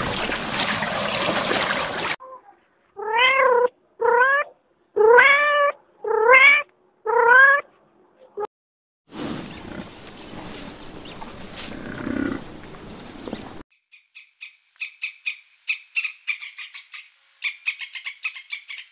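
A noisy rush cuts off about two seconds in, followed by a cat meowing five times in a row, each meow rising then falling in pitch. After a pause there are a few seconds of noisy outdoor background, then a hummingbird chirping in rapid, high, thin ticks near the end.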